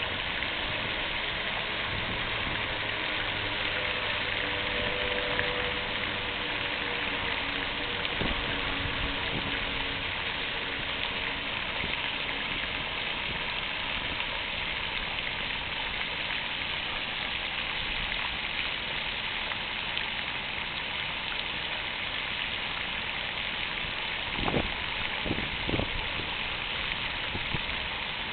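Fountain water splashing and falling in a steady rush. Three short knocks sound near the end.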